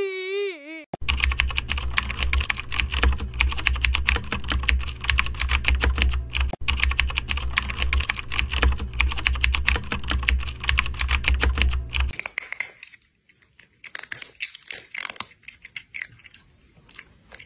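Rapid computer keyboard typing: a dense, fast run of key clicks over a steady low hum, starting about a second in and cutting off abruptly about twelve seconds in. A wailing cry fades out at the very start, and quieter scattered clicks follow the typing.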